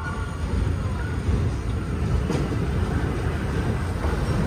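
Vintage R1-type New York City subway train rolling along the platform: a steady low rumble of steel wheels on rail.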